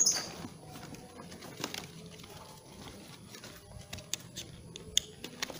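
Scuba BCD being handled: scattered clicks of its plastic buckles and fittings and rustling of its nylon straps and fabric, with a brief hiss right at the start.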